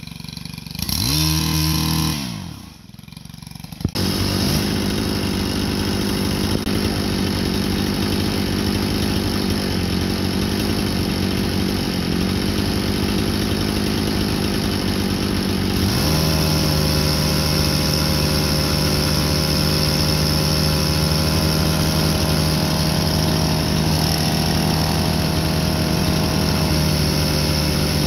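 A chainsaw revs up and falls back briefly near the start. From about four seconds in a tractor's engine runs steadily, its note growing firmer and more even about sixteen seconds in.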